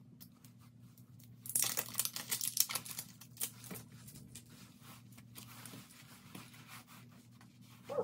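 Plastic wrapping being torn and crinkled off a new lipstick tube for about a second and a half, followed by small clicks and rustles as the tube is handled.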